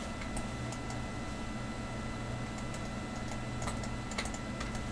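Scattered short clicks of a computer mouse and keyboard, a few at a time, over a steady low electrical hum.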